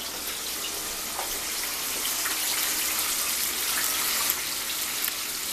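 Chicken pieces frying in hot oil in a pan: a steady sizzle with a few faint crackles and pops.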